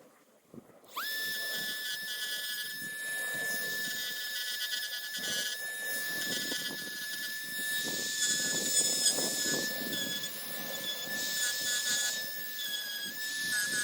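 Dremel rotary tool switched on about a second in, whining up to speed and then running at a steady high pitch, with rough grinding as the bit works against the fiberglass hull.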